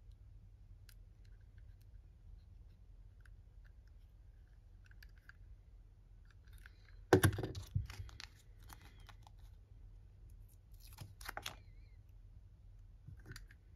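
Small plastic clicks and snaps from a Gator Panic gacha toy alligator being handled and its plastic parts fitted together. One loud plastic clack about halfway through, followed by a short clatter, and a brief burst of rustling clicks later on.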